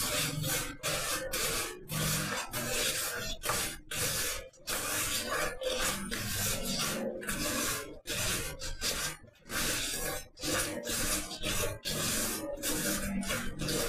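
A spoon scraping and beating soft margarine and sugar in a plastic mixing bowl, in repeated strokes as the two are creamed together.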